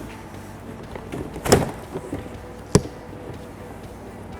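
Plastic rear door trim panel of a 2014 Toyota Tundra lifted up and off the door frame, giving two knocks: a louder one about a second and a half in and a sharper one about a second later.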